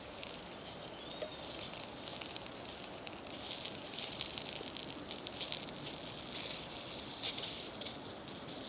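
Sausages sizzling in a pan on a Trangia spirit stove: a steady hiss with scattered crackles, louder in the middle.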